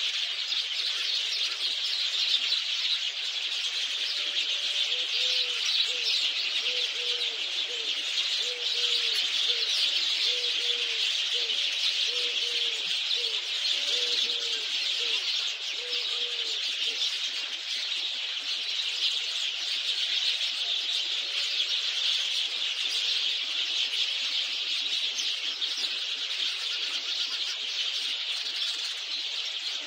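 A dense chorus of many small birds chirping at once. For about twelve seconds in the first half, a lower call is repeated evenly, roughly one and a half times a second.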